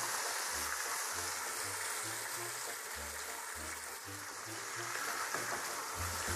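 Marinated chicken pieces frying in sunflower oil in a pan, a steady sizzle, under quiet background music with a low beat.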